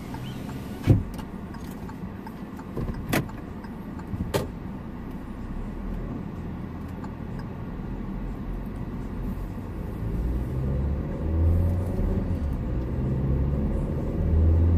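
Inside a car: a few sharp clicks and knocks in the first five seconds over a steady low rumble, then the engine and road rumble grows louder from about ten seconds in.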